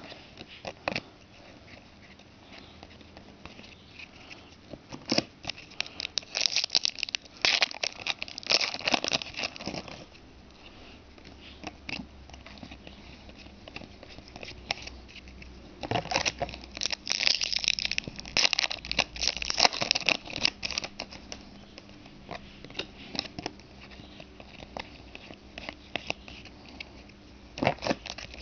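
Trading card pack wrappers being torn open and crinkled, and the cards handled, in bursts of crackling rustle with quieter stretches between.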